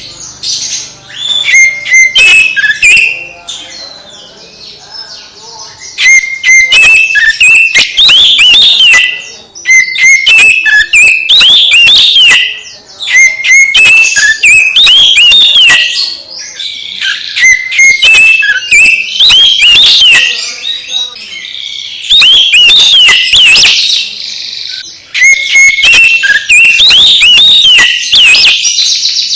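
Oriental magpie-robin (kacer) singing loud, varied whistled phrases mixed with rapid chattering notes, in bursts of a few seconds separated by short pauses.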